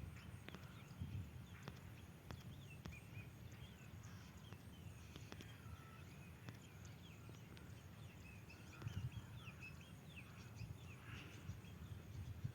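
Faint open-air ambience: a low rumble of wind on the microphone, with many short, faint bird chirps scattered through it.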